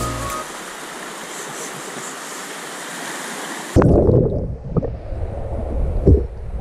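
Steady rushing of a river pool fed by a waterfall. Just past the middle the sound turns abruptly muffled and low as the camera goes underwater, with sloshing rumbles and a few dull thumps of water against it.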